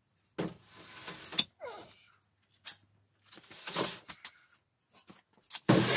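Bare metal trike frame being shoved and dragged across a concrete garage floor in several scraping pushes, the loudest near the end.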